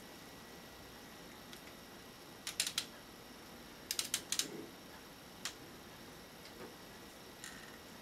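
Plastic clicks and clacks of a Lego Technic 8448 Super Convertible's parts being worked by hand: a quick cluster of three clicks a few seconds in, a denser run of four or five about a second later, then single softer clicks.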